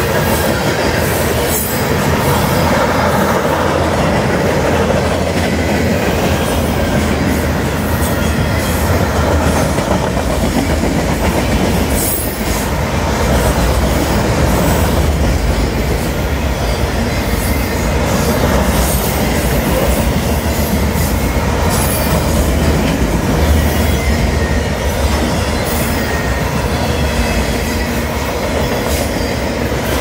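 A manifest freight train's cars, covered hoppers and then autoracks, rolling past at close range. Their steel wheels make a steady, loud rumble on the rails, with irregular clacks.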